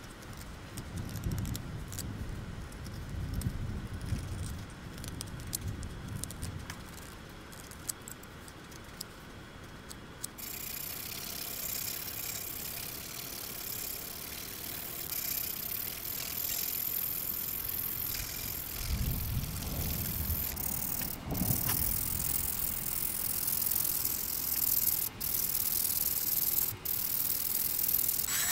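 Sandpaper rubbing against a carved wooden fishing-lure body, a steady rasping that sets in about ten seconds in, after a stretch of small clicks and knocks.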